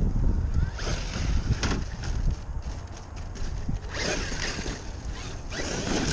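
Wind buffeting the microphone, with bursts of a Traxxas X-Maxx RC monster truck's electric motor and tyres tearing through loose dirt and gravel, loudest about four seconds in and again near the end as it climbs a mound.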